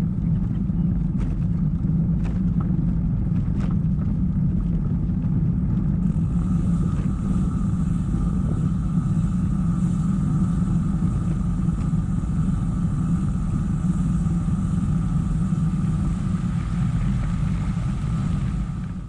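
Steady low wind rumble on the microphone with road noise from a bicycle being ridden, loud and unbroken; a faint steady whine joins about six seconds in.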